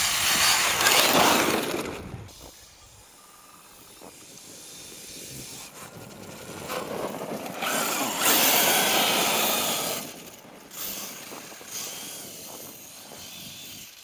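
HPI Savage Flux RC truck's brushless motor whining under throttle as its tyres churn and spray snow. It comes in bursts: loud for the first two seconds, dropping away, building to a second loud run about eight to ten seconds in, then shorter bursts.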